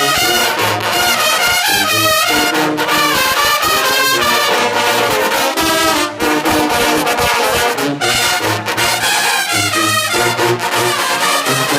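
Brass band playing loudly, held and wavering brass notes over a steady beat in the low register.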